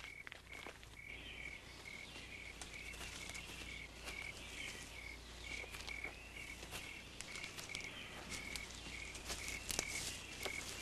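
A cricket chirping steadily at a high pitch, about two chirps a second, over a quiet night-time woods ambience, with scattered rustles and crunches of footsteps through leaf litter.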